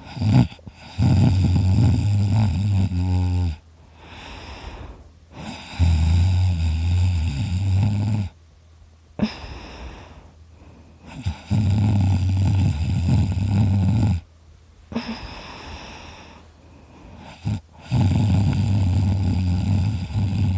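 Loud snoring: four long snores, each about two and a half seconds, with quieter breathing in the gaps between them and a couple of short, sharp sounds in the pauses.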